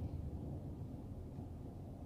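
Low, steady rumble of a car's engine and tyres heard from inside the cabin, slowly getting quieter.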